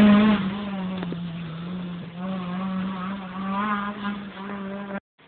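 Renault Mégane Coupé rally car's engine moving away up the road after passing, fading quickly, with the revs climbing a couple more times as it accelerates off. The sound cuts off abruptly near the end.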